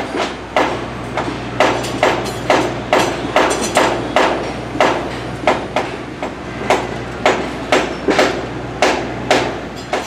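Hammer blows on metal with a short ring, about two a second at an uneven beat, from construction work fitting steel track strips onto a wooden roller coaster's track. A steady low hum runs underneath.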